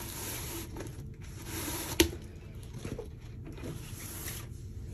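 A rolled diamond-painting canvas being slid out of its non-woven, shopping-bag-material sleeve: soft rustling and scraping of the fabric and rolled canvas, with one sharp tap about two seconds in.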